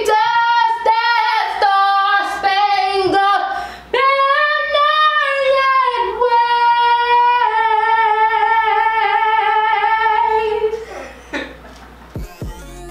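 A young woman singing unaccompanied, holding long, high notes one after another; the singing stops about eleven seconds in, and electronic music starts near the end.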